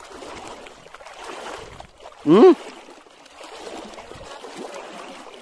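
Shallow water sloshing and trickling, with small ripples lapping, as someone wades in it. About two seconds in, a short single vocal exclamation.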